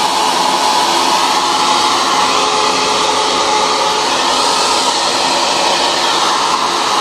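Handheld hair dryer running steadily close by: a constant rush of blown air with a steady motor hum under it.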